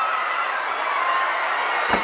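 Arena crowd shouting and cheering, with a single thud near the end.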